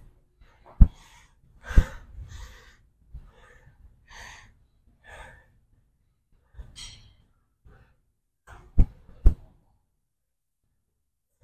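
A man breathing hard between squat sets, with gasping, sighing breaths, and a few sharp knocks, two of them close together near the end.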